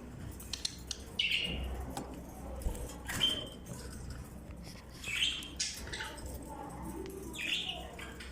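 Pet budgerigars chirping, short calls coming about every two seconds, with a few light ticks between them.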